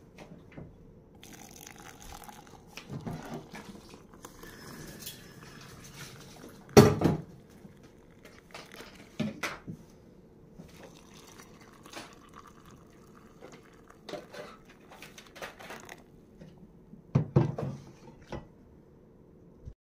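Hot water poured from an electric kettle into mugs of coffee powder, with a few clinks and knocks of kettle, mugs and spoon; the loudest, a sharp knock, comes about seven seconds in.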